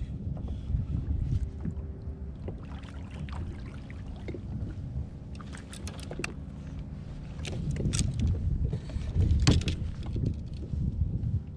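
A fishing kayak on the water: a steady low rumble of water and hull noise, with a few sharp knocks and clicks in the second half as gear or the hull is bumped.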